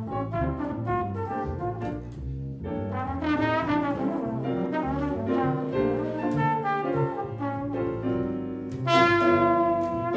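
Jazz trombone soloing in a fast run of quickly changing notes over upright bass and piano, reaching a louder held high note about nine seconds in.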